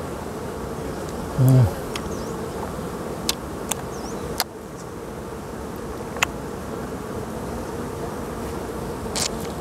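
Honeybees buzzing steadily around the opened comb, with a brief louder low hum about a second and a half in. A few short sharp clicks from handling the comb.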